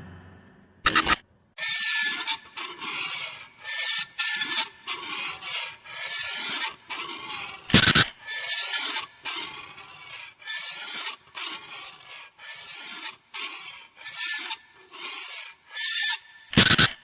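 Horror sound effect: a run of harsh rasping scrapes, about one or two strokes a second, with a loud sharp hit about a second in, another about eight seconds in, and a third near the end.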